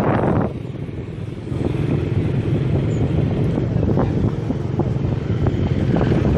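A motor vehicle engine running steadily, with wind on the microphone; it drops away about half a second in and comes back strongly after about a second and a half.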